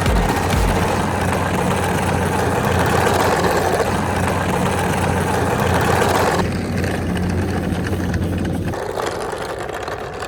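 A car engine running steadily at idle. Its sound drops away in two steps near the end.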